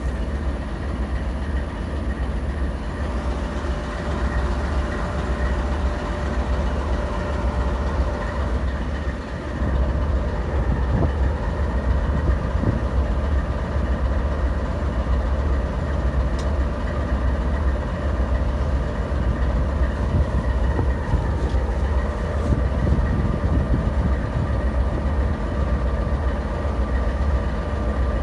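Diesel-electric locomotive, an ex-Santa Fe unit in warbonnet paint, with its prime mover idling: a steady, deep engine sound that gets a little louder about a third of the way in.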